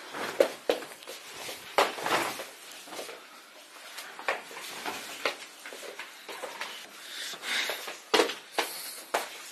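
Clothes and cloth being handled and moved about: rustling, with scattered knocks and thumps, the loudest about half a second, two seconds and eight seconds in.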